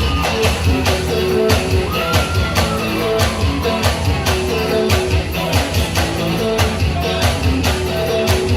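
Live band playing an instrumental passage over a steady drum beat.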